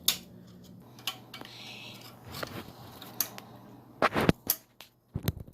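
Scattered sharp clicks and knocks of the plastic toilet flush lever and its mounting nut being handled and twisted on at the tank, with a cluster of louder knocks about four seconds in.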